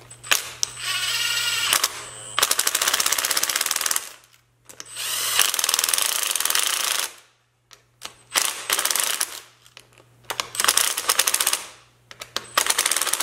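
Cordless impact driver with a 10 mm socket run-down bolts, in about six short bursts of rapid hammering rattle with brief pauses between them. The bolts fasten a wiper motor to its linkage bracket. The first burst starts with a whine as the motor spins up.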